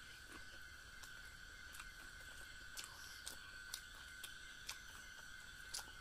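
Close-up biting and chewing of boiled corn on the cob: faint, short, sharp clicks that come irregularly, about eight in all, with a few close together past the middle. Under them runs a steady high-pitched hum.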